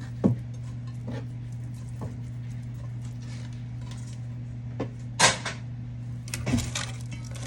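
A few knocks and clatters of kitchenware being handled, the loudest about five seconds in, over a steady low hum.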